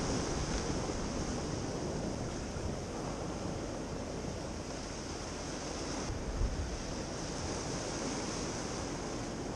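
Sea waves washing steadily on the shore, with wind buffeting the microphone in low gusts, the strongest about six and a half seconds in.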